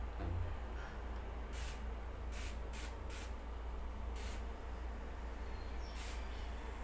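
Handheld pump-pressure garden sprayer misting water in about six short hissing bursts, the first about a second and a half in and the last near the end, with the nozzle set to a fine mist.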